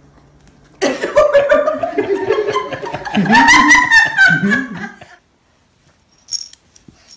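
Loud laughter starting about a second in and lasting about four seconds, then a sudden cut to near silence with a few faint clicks near the end.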